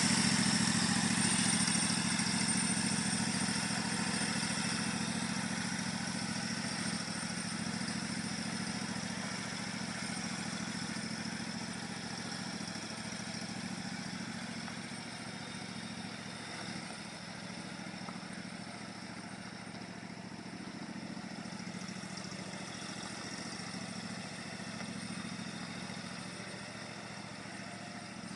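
Riding lawn mower engine running steadily, growing gradually fainter over the first half or so as the mower moves away.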